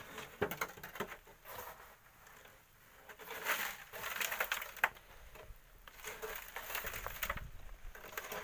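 Shovels scraping and tipping volcanic sand and gravel into a metal wheelbarrow, a gritty pouring with small stones clicking, in a few bursts several seconds apart.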